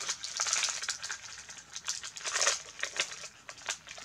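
Packaging crinkling and rustling with irregular crackles as a wrapped wax melt box is opened by hand.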